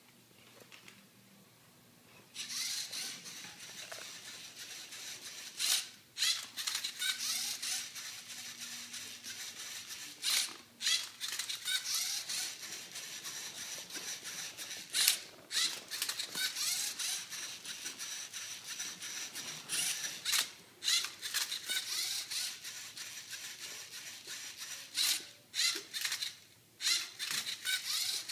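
Lego Mindstorms Rubik's Cube solving robot running: its motors whirr as it turns the cube to scan it, starting about two seconds in, with brief pauses between moves.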